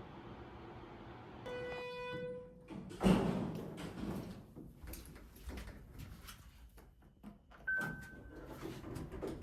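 A held electronic beep lasting about a second, then a sudden loud thud and rumble, like a door sliding or banging. Scattered clicks and knocks follow, with a short, higher beep near the end.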